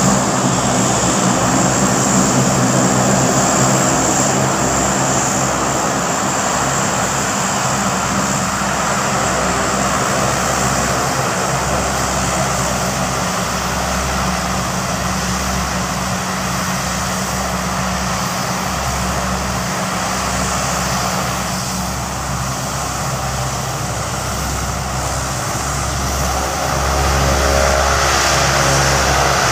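Four turboprop engines of a Lockheed C-130 Hercules running as it taxis: a steady propeller drone with a low hum, growing louder near the end.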